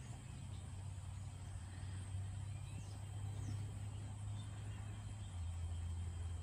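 Low steady mechanical hum that steps down slightly in pitch about five seconds in, with a faint thin high whine running above it.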